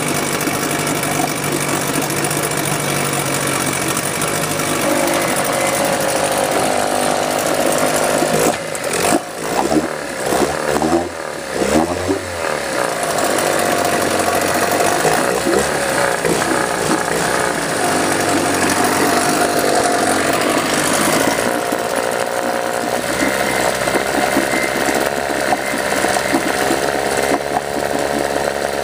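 1988 Sears Gamefisher 9.9 hp twin-cylinder two-stroke outboard (Force/Chrysler) running in a test tub, its propeller churning and splashing the water. Its engine speed shifts unevenly around the middle of the stretch and settles again later. It has just had a new water pump impeller fitted, and its idle and mixture are still unadjusted.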